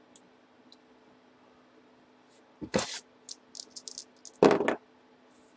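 Dice being handled and knocked on a tabletop: two loud clattering knocks about a second and a half apart, with a run of light clicks between them.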